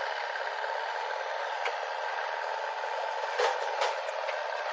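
A vehicle engine running steadily, thin and without any bass, with a faint steady whine. Two sharp knocks come close together about three and a half seconds in.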